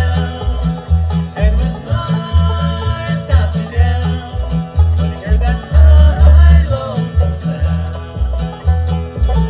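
A live bluegrass band plays: banjo, mandolin and acoustic guitar picking over an upright bass that plucks a steady beat about twice a second.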